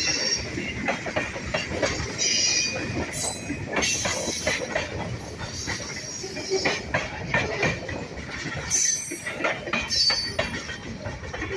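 WNYP railroad train cars rolling past, their wheels clicking over the rail joints, with short high squeals of wheel on rail now and then.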